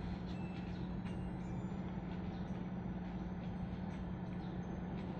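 A steady low hum over faint rumble and hiss, with a few faint ticks, and no music or voice.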